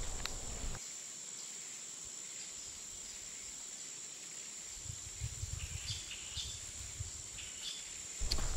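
Forest ambience: a steady high-pitched insect drone, with a few short bird chirps and some intermittent low rumbling in the second half.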